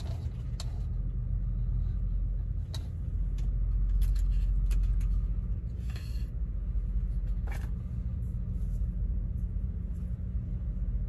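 Truck engine idling, a steady low rumble heard from inside the cab, with a few faint clicks.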